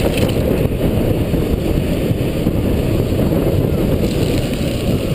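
Loud, steady wind buffeting on a GoPro microphone worn by a mountain biker riding fast downhill, mixed with the rumble of the bike over the trail.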